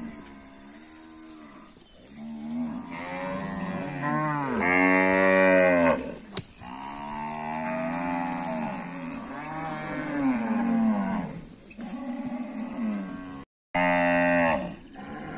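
A herd of cattle mooing, one long call after another, each rising and falling in pitch, with the loudest call about five seconds in.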